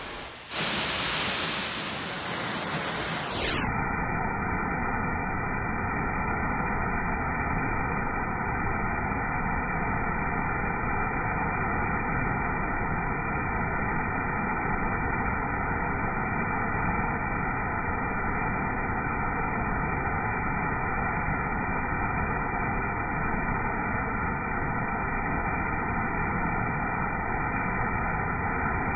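Small waterfall pouring onto rocks into a pool: a steady rush of falling water. It comes in louder suddenly about half a second in and turns duller and more muffled after about three seconds.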